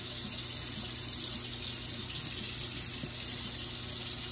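Bathroom sink faucet running a thin, steady stream of hot water into the basin.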